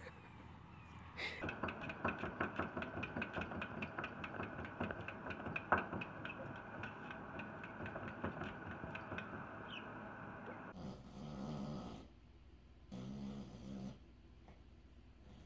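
Quick, irregular tapping, a few taps a second, as a cat paws at a mirror. Then a small dog asleep on its back snores in two long breaths near the end.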